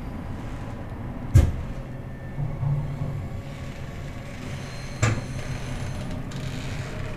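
Steady low rumble of a moving vehicle heard from inside the cabin, with two sharp knocks, the louder one about a second and a half in and another about five seconds in.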